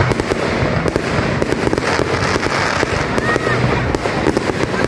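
Fireworks display: many aerial shells bursting in quick succession, a continuous run of bangs and crackling.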